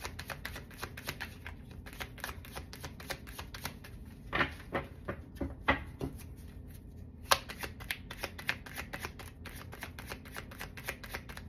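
Tarot deck being shuffled by hand: a quick, continuous patter of cards, with a few louder snaps between about four and seven seconds in.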